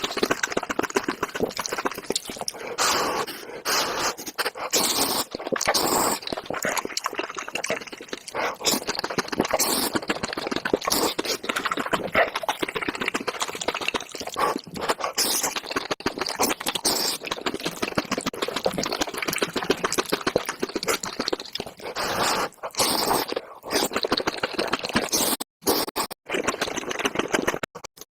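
Close-miked eating sounds of Indomie instant noodles with cheese and bread: wet chewing, mouth smacks and clicks, dense and irregular, with a few short breaks near the end.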